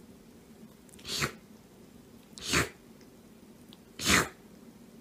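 A kitten sneezing three times, about a second and a half apart.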